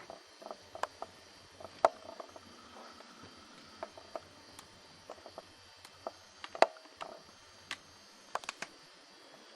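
Scattered light knocks and clicks at irregular intervals, the sharpest about two seconds in and again just before seven seconds, over a faint steady background.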